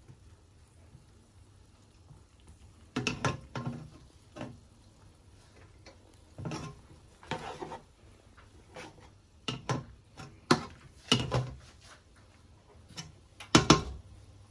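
A plastic slotted spatula scraping and knocking against a nonstick frying pan while stirring melting butter and garlic: a string of short irregular scrapes and taps, the loudest near the end.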